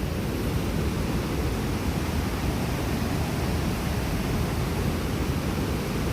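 Steady rush of a swollen stream running high and fast after heavy rain.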